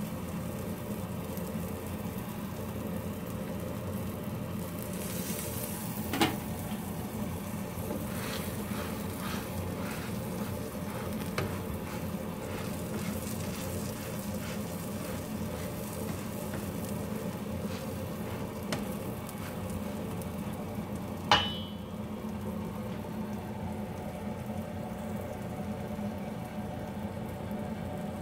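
Eggplant omelettes sizzling steadily in oil in a frying pan, with a utensil pressing and turning them; a few sharp clacks of the utensil against the pan, the two loudest about six seconds in and about twenty-one seconds in.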